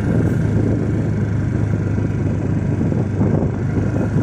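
Motorcycle riding along a bumpy dirt track: a steady engine hum with a constant low rumble of road and wind noise.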